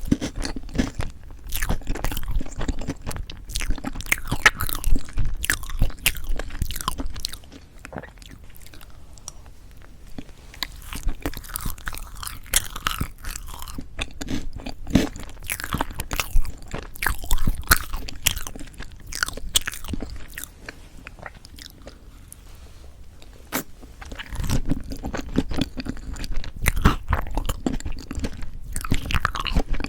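Close-miked ASMR mouth sounds of chewing strawberry chocolate cream cake: a dense run of wet clicks and smacks, louder in the first seven seconds and again near the end, softer in between.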